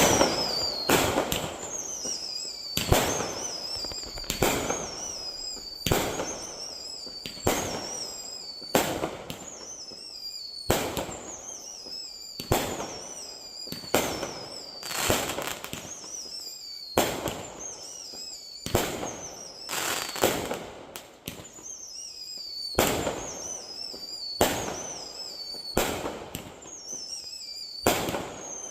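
A 49-shot consumer fireworks cake (Doremi "K") firing shot after shot, roughly one to two a second. Each shot is a sharp report, and most are followed by a high wavering tone that falls in pitch.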